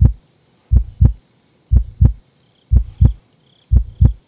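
Heartbeat sound effect: paired low thumps (lub-dub) about once a second, five beats, over faint high tones.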